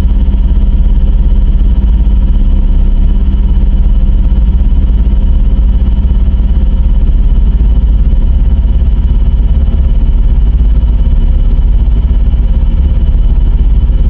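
Electronic emergency-alert alarm tone: a loud, steady low drone with several held higher tones over it, unchanging throughout.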